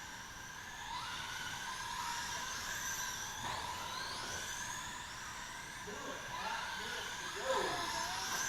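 Several radio-controlled race cars running laps, their electric motors whining with the pitch rising and falling as each car speeds up and slows down.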